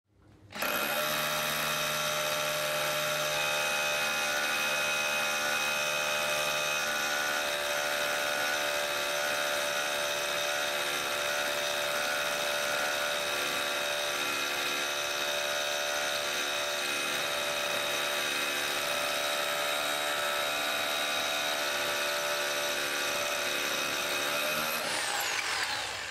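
Makita HR2470 SDS Plus rotary hammer starting up and running steadily at full speed, then winding down near the end with a falling pitch.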